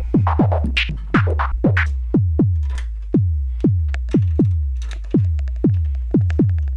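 Modular-synth drum patch. The kick drum is an SH-101-type filter pushed into self-resonance and struck by an envelope, so each hit drops quickly in pitch into a low thump, about two a second. On top come short hits of bandpass-filtered noise from the Feedback Static noise module.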